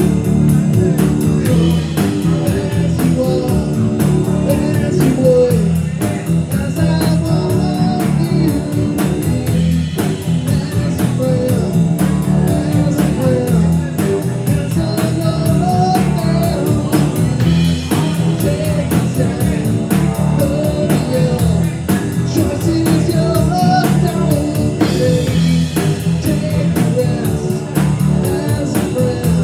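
Rock band playing live with a blues feel: guitar lines over bass and a steady beat.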